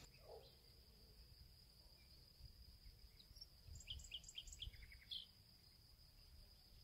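Near silence: faint outdoor ambience with a steady high whine and a quick run of faint bird chirps about four seconds in, then one more chirp a second later.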